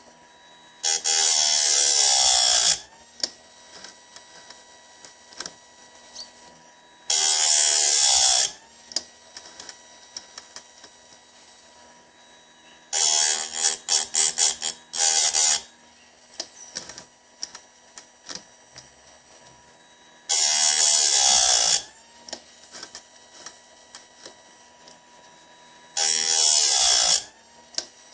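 Bench-mounted chainsaw chain sharpener's grinding wheel grinding the chain's teeth one at a time. There are five bursts of grinding, each a second or two long and about six seconds apart; the middle one is broken into several quick touches. Small clicks come between the bursts.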